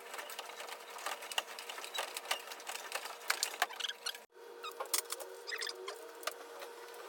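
Dense, irregular small clicks and rattles, with an abrupt break about four seconds in, after which a faint steady hum runs under them.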